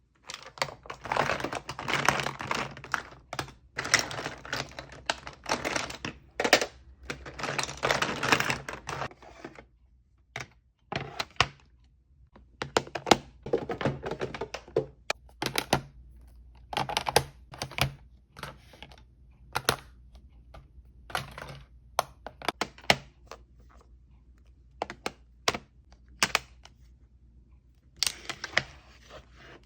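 Cosmetic containers being handled close up: about ten seconds of scratchy rubbing, then a run of separate sharp clicks and taps, like lids and cases opening and snapping shut.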